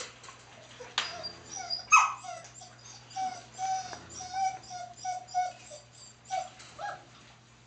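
German Shepherd puppy, four weeks old, whimpering: a run of short, high whines, about two a second. There is a sharp knock about a second in and a louder yip a second later.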